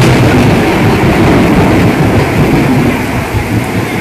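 Loud, deep rumble of thunder from a close lightning strike, slowly easing, over heavy rain.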